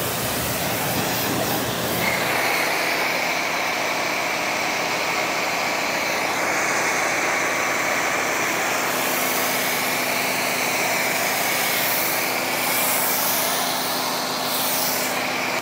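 Pressure washer running with a steady hiss of spray, first rinsing a car with a water jet, then through a foam cannon laying thick foam over it. A faint steady whine joins the hiss about two seconds in.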